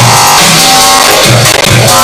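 Loud electronic music with a heavy repeating bass beat and sustained synthesizer tones.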